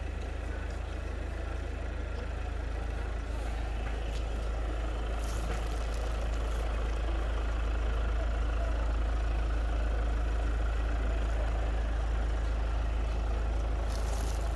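A loud, steady deep rumble over a faint background hubbub, growing a little louder a few seconds in and cutting off sharply at the end.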